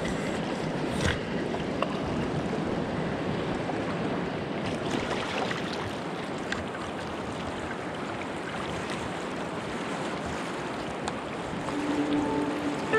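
Fast, shallow river water rushing over stones, with water sloshing close around the camera as a snorkeler wades in and lies down in the current; a few faint knocks. Music fades in near the end.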